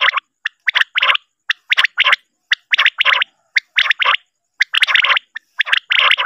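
Common quail calling: a clipped three-note phrase, one short note then two stronger ones, repeated about once a second, as on a quail lure recording.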